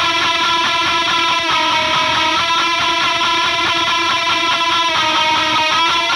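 Hardcore metal music near the opening of a track: distorted electric guitar playing sustained, ringing chords at a steady, loud level.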